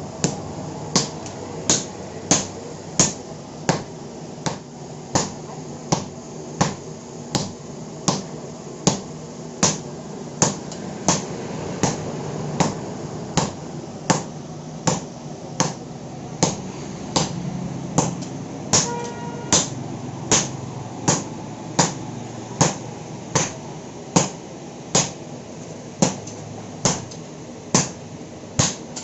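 Two sledgehammers taking turns striking hot iron on an anvil in hand forging, a sharp metallic strike about one and a half times a second at a very steady pace, over a low steady rumble.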